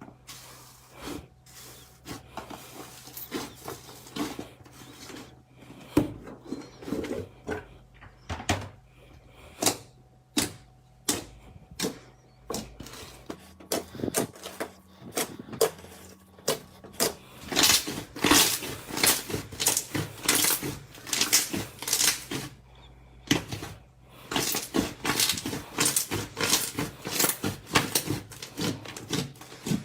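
Slime being pressed and squeezed, making rapid sticky clicks and crackles that come in dense runs in the second half.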